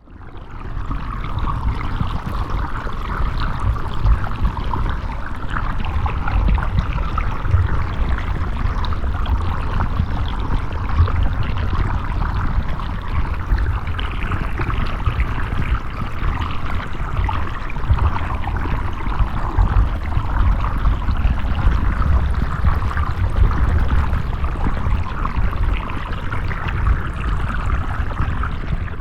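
Underwater recording of flowing sewer water: a steady rush with a deep rumble underneath and a hissing band above it. It fades in at the start and fades out near the end.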